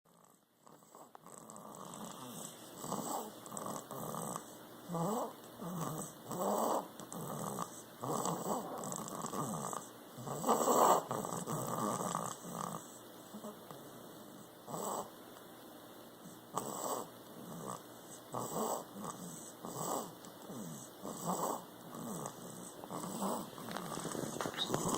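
Snoring through a stuffy, congested nose: uneven snores and snuffles about once a second, some with a wavering nasal whistle, the loudest about eleven seconds in.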